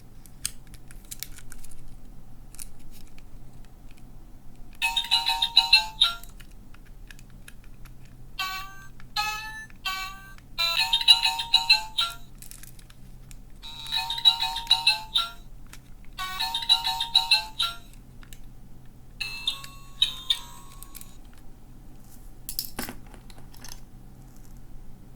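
Small electronic sound toy from a capsule machine playing short electronic jingles, each about a second long, several times over, with three quick stepped beeps in between, and faint clicks between the sounds.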